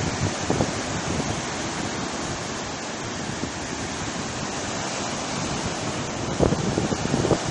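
Sea surf washing in steadily, with wind buffeting the microphone; the gusts grow stronger near the end.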